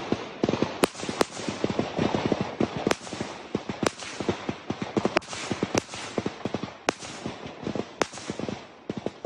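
Small-arms gunfire: seven or so sharp single shots, about a second apart. Between them come a quick run of footsteps and knocks on dirt and grass, close to a handheld phone.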